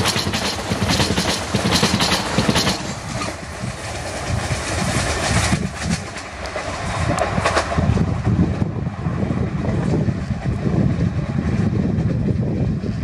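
Express train coaches passing at speed, the wheels clattering rapidly over the rail joints for the first few seconds, then a steady rumble as the last coach runs on down the line.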